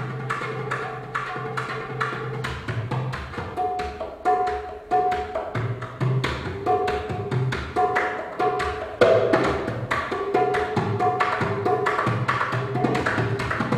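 Hand drum played with the fingers in a quick, steady rhythm of about four strokes a second, with short ringing pitched notes over a low hum; one louder stroke about nine seconds in.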